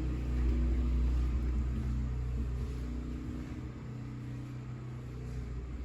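An engine running with a steady low rumble that grows quieter from about two seconds in.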